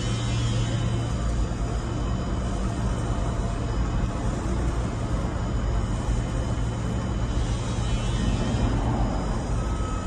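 Tamglass ProE glass tempering furnace line running: a steady low hum with an even rush of machine noise.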